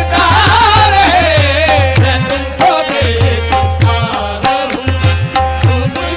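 Qawwali music: tabla playing a steady beat under sustained held notes, while a voice sings a long, wavering wordless line that slides down in pitch over the first three seconds.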